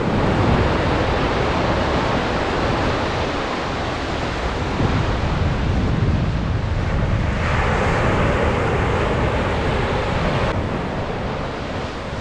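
Atlantic surf breaking on a sandy beach, with wind rumbling on the microphone. A wave washes in with a brighter hiss from about seven and a half seconds in and fades out after about three seconds.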